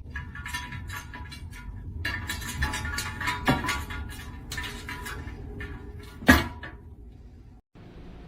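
Household clattering: a run of knocks and rattles, with one loud sharp knock about six seconds in.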